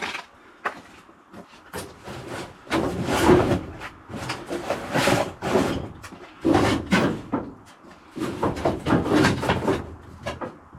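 Irregular bursts of scraping and rubbing with knocks, several clusters each lasting about a second, from things being handled and moved about during work.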